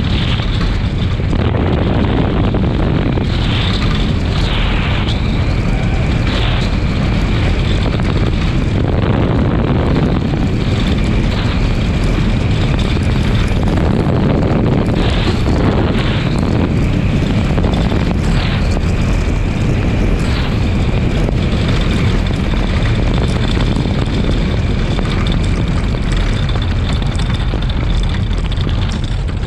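Bobsled runners sliding down an ice track at speed, with wind rushing over the sled-mounted microphone: a loud, steady rumble with a thin high whine over it.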